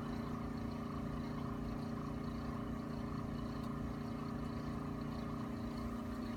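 A steady, even mechanical hum at one constant pitch, with no other events.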